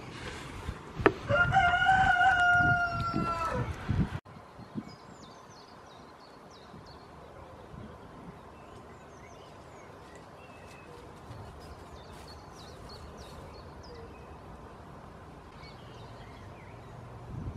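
A loud, long farm-animal call lasting about two and a half seconds, held on one pitch and dropping at the end. After an abrupt cut, faint twittering of small birds sounds over a quiet background.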